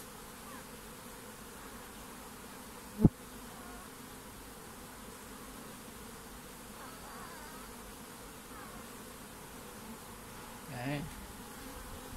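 Asian honey bees (Apis cerana) buzzing steadily around an open mini mating box, with a single sharp knock about three seconds in.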